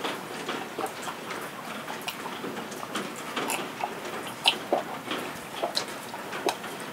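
Steady rain with irregular drips ticking, while a man takes a long drink of makgeolli from a bowl, swallowing.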